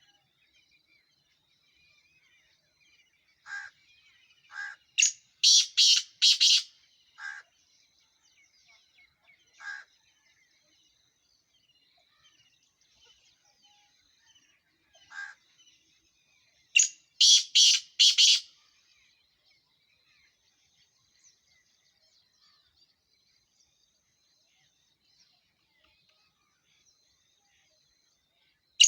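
Black francolin (kala teetar) calling: two loud bouts of four or five rapid harsh notes, about five seconds in and again about seventeen seconds in, with a few softer single notes scattered between.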